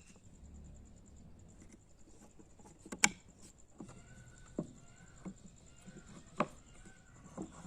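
A few sharp knocks of tools on wood, the loudest about three seconds in and three or four smaller ones after it, with faint short chirps in between.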